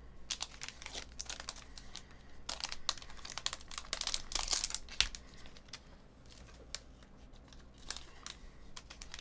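Metallic foil wrapper being torn open and crinkled by hand: a dense run of crackling in the middle, then sparser crinkles. One sharp tap about five seconds in is the loudest moment.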